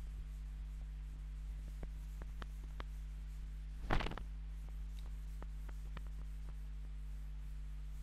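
Chalkboard duster wiping a blackboard: faint scuffs and light taps over a steady low hum, with one louder short knock about halfway through.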